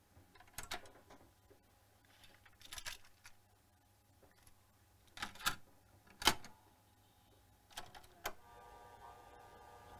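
Scattered small mechanical clicks and knocks over a faint hum, then faint guitar music starting to come up through a hi-fi stereo near the end as its volume knob is turned up.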